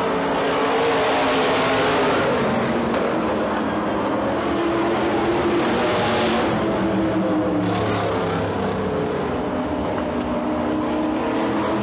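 Several modified stock car engines running at racing speed on a dirt oval, their pitches rising and falling as the cars pass.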